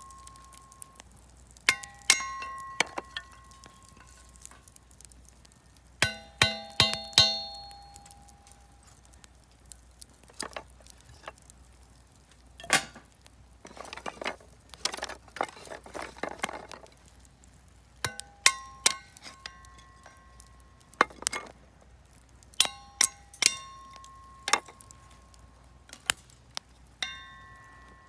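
Repeated metallic clinks, each ringing briefly at the same few pitches, coming in small clusters, with a stretch of rustling in the middle.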